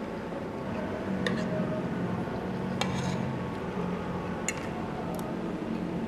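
Cutlery clinking against a plate or bowl, four short sharp clinks spread across a few seconds, over a steady low hum of room noise.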